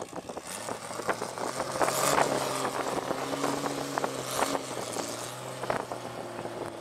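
Sand buggy engine running under load on a steep sand dune, its note held fairly steady through the middle, with a few short bursts of noise over it.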